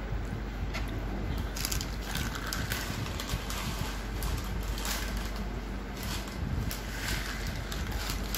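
Steady background noise and low hum, with a few faint clicks and knocks scattered through it.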